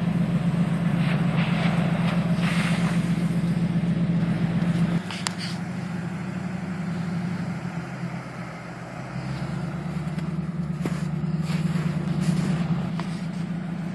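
A 4x4's engine runs steadily as it drives through slushy snow. About five seconds in the sound changes abruptly to a quieter drone, which grows a little louder again near the end.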